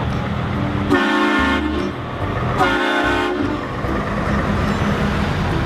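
Two blasts of a vehicle horn, each under a second, over a steady low engine rumble.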